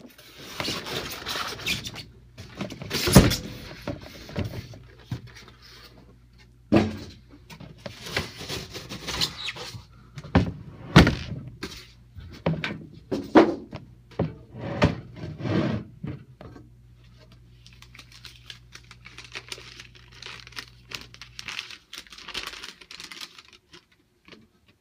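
Unpacking: cardboard and styrofoam packing handled and moved about, with irregular knocks and thunks, rustling and occasional squeaks. The handling goes quieter to a light rustle in the last few seconds.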